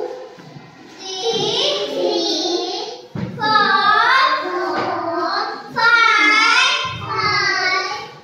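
A young child singing in short phrases, with brief breaks between lines about three and six seconds in.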